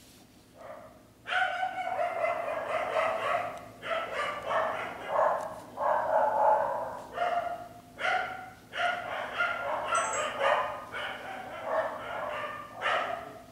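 A dog barking and yapping in repeated runs, starting about a second in.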